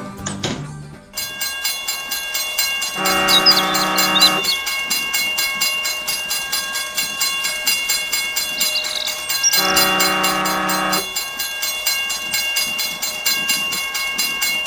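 Train running with a steady rhythmic clatter of wheels over rail joints, and two horn blasts, each over a second long, about three seconds in and about ten seconds in.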